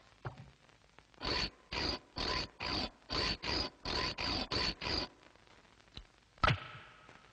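Cartoon scraping sound effect: about ten quick, even strokes, roughly two and a half a second. Then a small click and a sharp knock that rings briefly.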